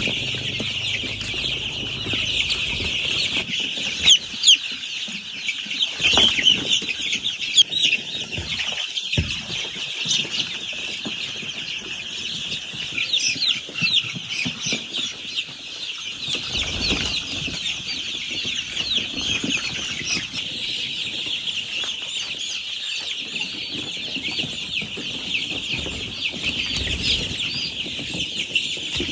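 A crowd of ten-day-old black chicken chicks peeping continuously, many high calls overlapping, with a few sharp knocks in the first ten seconds.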